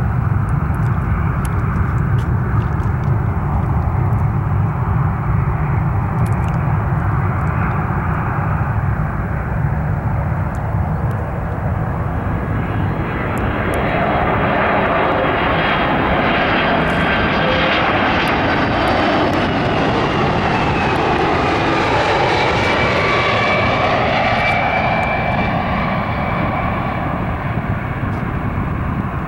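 Boeing 767-300 twin-engine jet airliner on final approach, flying over low. A steady low rumble is joined about halfway in by a loud jet whine whose tones bend in pitch as the aircraft passes, easing off near the end.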